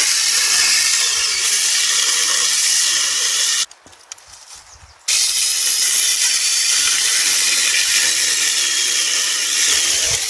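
Small electric mini chainsaw running with a high whine as it cuts dead wood for firewood. It stops suddenly about three and a half seconds in and starts again about a second and a half later.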